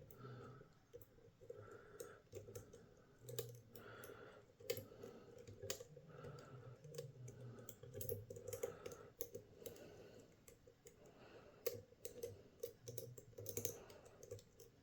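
Faint, irregular clicking and ticking of a lock pick working the pins of a six-pin DORMA euro cylinder under a tension tool.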